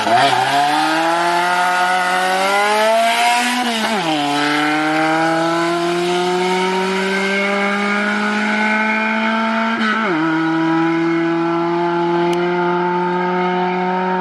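Car engine accelerating through the gears: the revs climb, fall at an upshift about four seconds in, climb again more slowly, fall at a second upshift about ten seconds in, then hold nearly steady.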